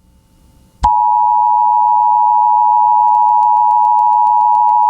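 Emergency Alert System two-tone attention signal: a steady, loud dual tone that comes in about a second in after a short quiet gap. It is the warning that an emergency alert message is about to be read.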